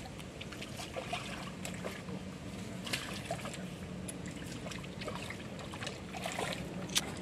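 Light trickling and small splashes at the water's surface, with scattered faint ticks and one sharp click about seven seconds in.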